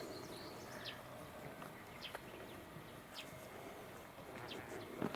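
Outdoor ambience with small birds chirping now and then, short high calls over a steady background hush, and a sharp knock or footstep near the start and again near the end.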